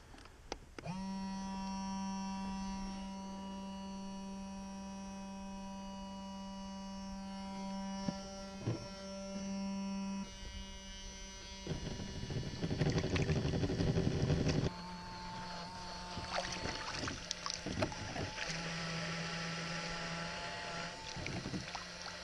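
Small electric livewell aerator pump switching on with a quick rising whine, then running with a steady hum, failing to prime and draw water, which the owner puts down to the pump sitting above the waterline. A few seconds of water sloshing and knocking come near the middle.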